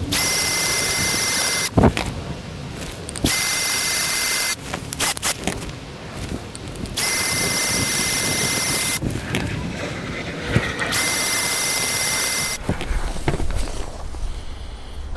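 Bosch cordless drill spinning a miniature single-cylinder four-stroke hit-and-miss petrol engine over through its starting key, to start it. It runs in four steady whining bursts of one to two seconds each, with short pauses between.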